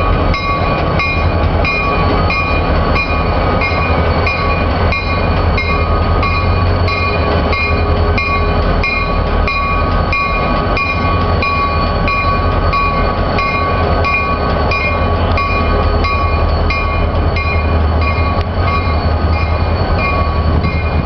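Rail-yard train sound: a steady low rumble with several steady high tones and a regular metallic clicking about three times a second.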